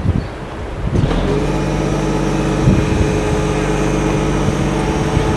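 Truck engine running the aerial platform's hydraulics. It comes up to a steady raised speed about a second in as the platform is lowered.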